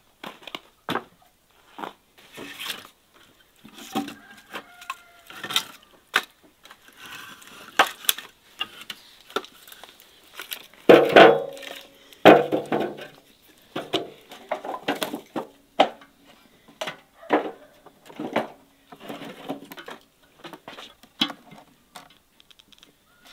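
Firewood being handled and loaded into a rusty metal stove: scattered knocks and clatters of wood, loudest as two heavy thumps about halfway through.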